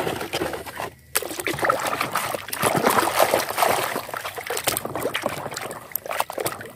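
Plastic toys knocking together as one is pulled from a tub, then a hand swishing a plastic toy dinosaur through a basin of muddy water, sloshing and splashing.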